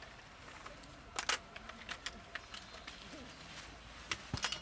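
Scattered light clicks and taps at an irregular pace, with a louder cluster about a second in and another near the end.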